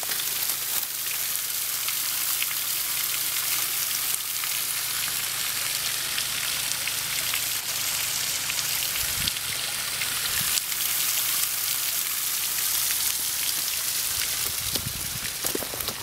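Steady hiss of water rushing and splashing down a small rocky stream channel. A few low thuds come in near the end.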